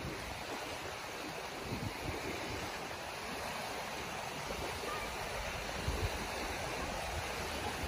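Small waves washing up on a sandy beach: a steady wash of gentle surf.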